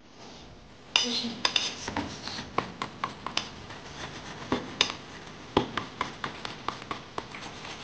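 Metal fork beating eggs in a stainless steel bowl, its tines clinking against the bowl's side in quick, irregular strokes that start about a second in.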